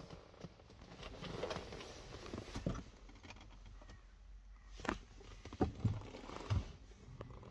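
Faint rustling and handling noise with a few soft knocks and taps, most of them between about five and six and a half seconds in.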